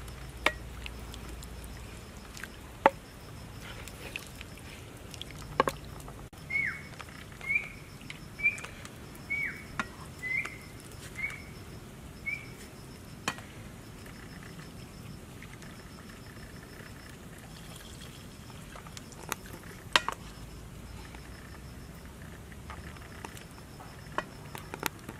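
A metal ladle knocks and scrapes against a frying pan and plate as cooked meat is spooned out, with a few sharp clinks spread through. A run of about seven short, high chirps, each falling in pitch, comes about one a second. Insects trill steadily in the background.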